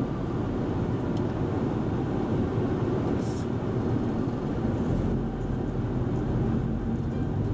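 Steady low rumble of a running vehicle, even throughout, with a brief faint hiss about three seconds in.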